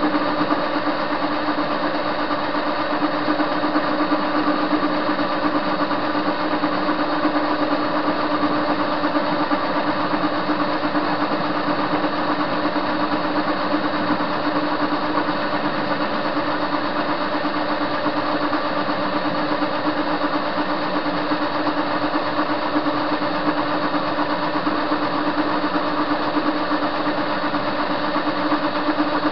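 TV-16 Soviet training screw-cutting lathe running steadily while turning a metal bar: an even motor and gear hum with one strong constant tone.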